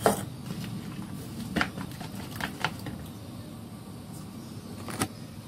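A steel spoon clicking against a plastic bowl while a runny mixture is stirred: a handful of short sharp clicks, the loudest right at the start and about five seconds in, over a low steady hum.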